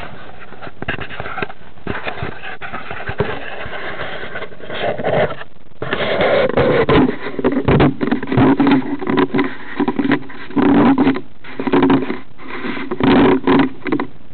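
Close handling noise on a small camera mounted on a model biplane's battery hatch: a hand rubbing and scraping over the camera and the plane's plastic, with many clicks. From about six seconds in the rubbing comes in louder, irregular bursts.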